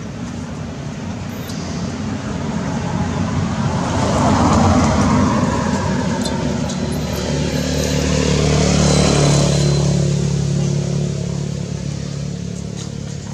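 Motor vehicles driving past close by, engine and road noise swelling to a peak about four seconds in and again around nine seconds, with a low engine drone in the second pass, then fading.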